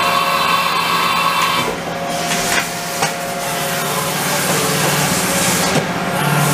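Haas VF-2SS CNC vertical machining center running, its table and spindle head traversing: a steady low hum under mechanical noise, with a higher whine for the first couple of seconds that then stops.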